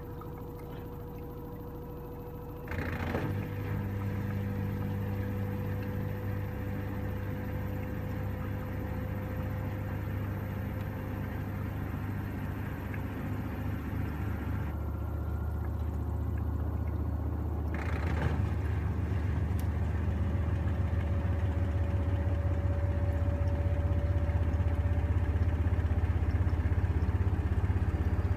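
LG TurboWash front-loading washing machine in its final spin, the drum spinning fast with a steady motor hum. The hum steps up about three seconds in and grows gradually louder as the spin speed climbs, with a brief rattle about eighteen seconds in.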